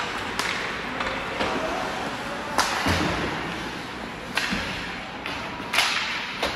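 Ice hockey play: about five sharp cracks and bangs of sticks, puck and boards, each with a short ringing tail, the loudest about two and a half seconds in and near the end, over the steady noise of the rink.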